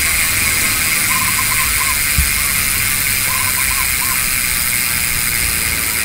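Koozer XM490 Pro rear hub freewheeling as the wheel spins, its pawls giving a steady, continuous buzz, with a single light knock about two seconds in.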